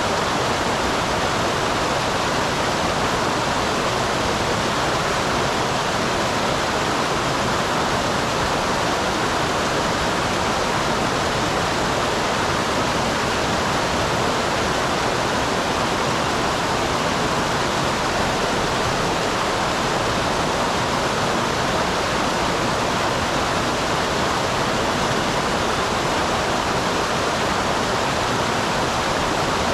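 Small waterfall on a mountain stream, water pouring and splashing steadily.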